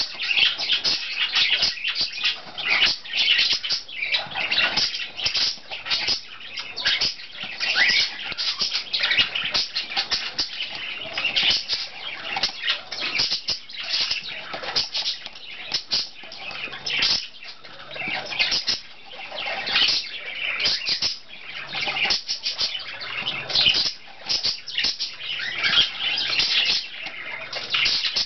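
A budgerigar picking and scraping at a styrofoam block with its beak, making a fast, continuous crackling scratch.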